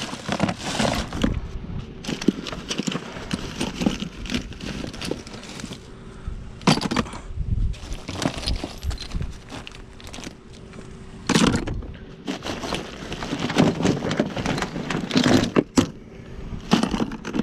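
Loose shotgun shells clattering and a plastic bag rustling in irregular bursts as the shells are handled and dropped into a plastic tote.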